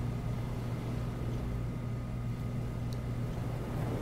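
A steady low hum with no change or events.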